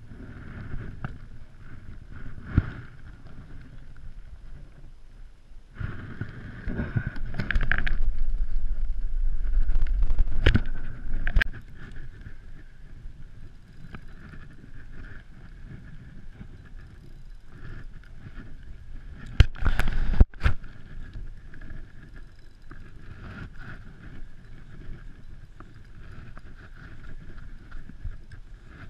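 Wind buffeting the microphone on an open kayak, with a loud low rumbling gust from about six to eleven seconds in. A few sharp knocks of fishing gear handled against the kayak come about two-thirds of the way through.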